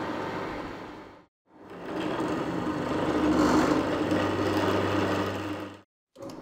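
Drill press running as a bit and then a reamer cut an 8 mm oiler hole through a bronze bush. The sound cuts out briefly twice, about a second in and near the end, and is loudest in the middle.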